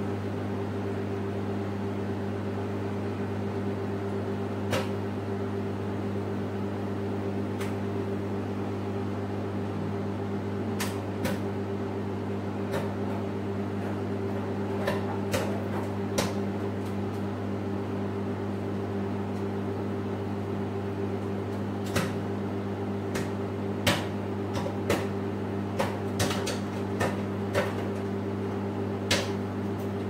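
Microwave oven running with a steady hum while a bag of microwave popcorn heats inside. Single kernels start popping about five seconds in, a sharp pop every few seconds at first and coming faster toward the end: the first stage of popping.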